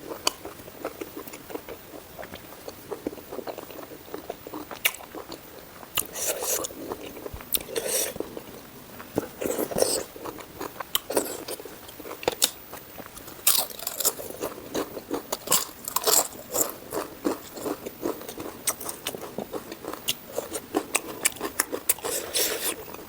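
Close-miked eating: a person chewing with repeated crisp crunching bites, louder crunches coming in clusters every few seconds.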